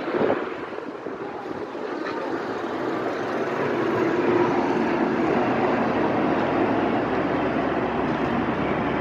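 Boat engine running, growing louder over the first few seconds and then holding a steady drone, with wind and water noise around it.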